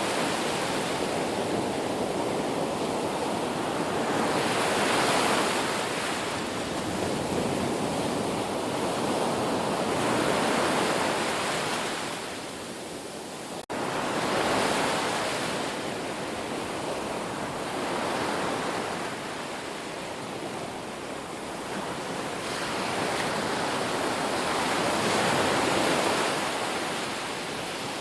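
Ocean waves breaking and washing in, swelling and ebbing about every five seconds. About 14 seconds in the sound drops away briefly and cuts straight back in.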